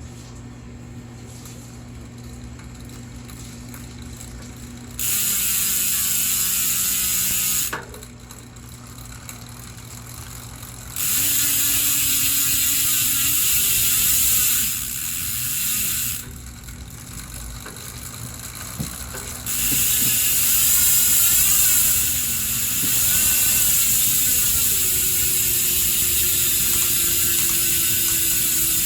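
Speedone Soldier bicycle hub's freehub pawls ratcheting in a loud, high buzz as the wheel freewheels. The buzz comes in three runs, about three, five and nine seconds long, with quieter gaps between them.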